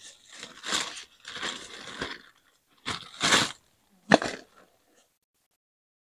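Rustling and crinkling in four short bursts, as someone rummages through bags of camping gear looking for a spoon.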